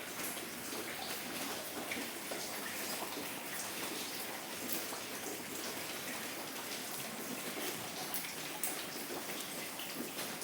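Steady patter of rainwater dripping and splashing inside a house, the roof leaking in a heavy rainstorm.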